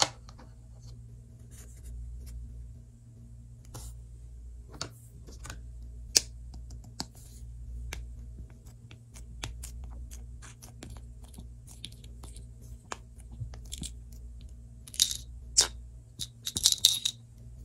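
Light clicks and taps of plastic modelling-dough tools and a plastic tray being handled, with soft squishing of Play-Doh pressed and cut under a plastic tool. A few louder crackly squishes come near the end.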